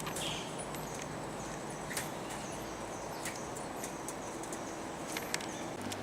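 Rainforest background: a steady hiss with a few sharp taps spread through it and a faint, high, short call repeating over and over.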